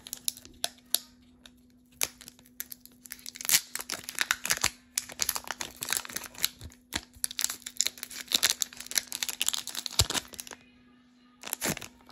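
A foil Pokémon booster pack wrapper being torn open and crinkled, in quick crackling bursts that stop about ten seconds in, with one last short rustle near the end. A faint steady hum runs underneath.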